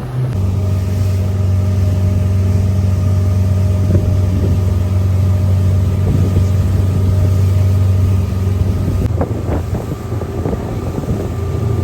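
Motorboat engine running steadily under way. Its note drops slightly just after the start and shifts again about nine seconds in.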